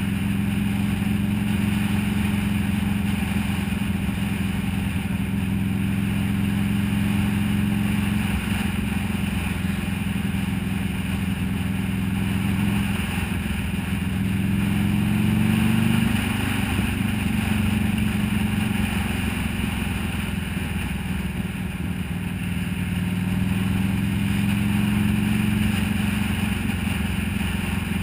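Buell XB12S's air-cooled V-twin engine running at road speed, with wind and road noise. Its pitch climbs slowly in the middle, drops suddenly about sixteen seconds in, and rises again near the end.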